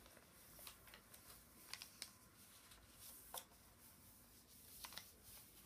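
Faint crinkles and clicks of a sheet of paper being folded and creased by hand, a handful of short sharp sounds spaced out over a few seconds against a quiet room.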